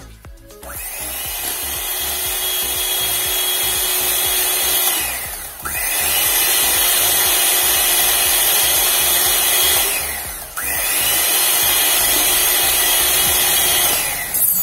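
Electric hand mixer running, its beaters whisking eggs, sugar and oil into cake batter in a glass bowl. It starts about a second in, dips briefly twice, at about a third and two-thirds of the way through, and cuts off near the end.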